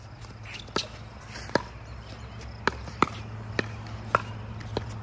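Pickleball rally: sharp pops of paddles striking the hard plastic ball, about seven hits at uneven intervals of roughly half a second.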